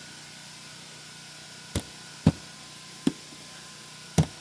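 Four sharp taps about half a second to a second apart, typical of tapping to start a screw hole through butyl tape into an RV's metal siding.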